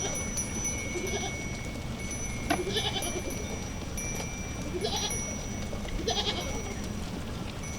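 A herd of goats bleating, about four wavering calls a second or so apart, over a steady background with a thin, high, steady tone.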